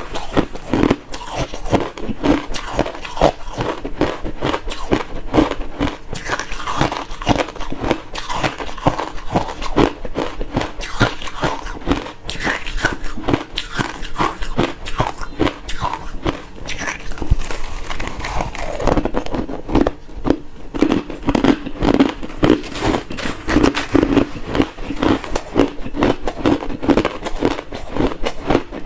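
Close-up chewing of refrozen crushed ice: a dense, continuous crunching and crackling as the ice is bitten and ground between the teeth.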